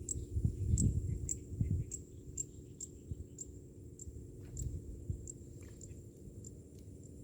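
Outdoor ambience: insects ticking about twice a second over a steady low hum, with a few low knocks in the first two seconds.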